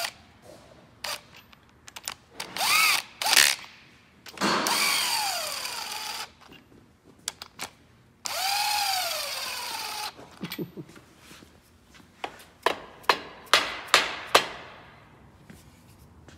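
Cordless ratchet spinning main-cap bolts down on an LS-family Corvette engine block in three short runs, its motor whine falling and rising in pitch as each bolt runs in and seats. Then comes a quick string of sharp metallic clicks.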